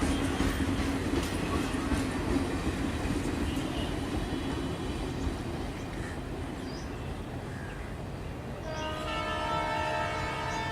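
Electric train running by with a steady rumble and rail noise, easing off after about five seconds. About nine seconds in, a long steady tone of several pitches comes in and holds.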